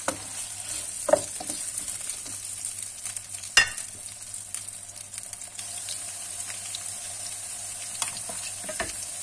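Sliced carrots and potato chunks sizzling steadily in hot oil in a frying pan, stirred with a wooden spatula at the start. A sharp knock about three and a half seconds in stands out above the sizzle, with a few smaller ticks.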